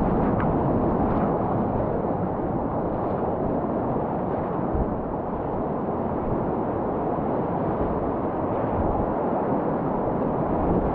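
Steady rushing noise of river whitewater at about 400 cubic feet per second, loud and even throughout.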